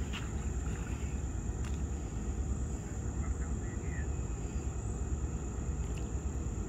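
Steady low outdoor rumble with a faint, steady high-pitched tone over it, and a few faint short chirps about three seconds in.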